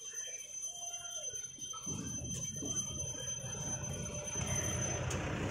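Street traffic: a motor vehicle's engine and tyre noise comes in about two seconds in and grows steadily louder, over a steady high-pitched whine.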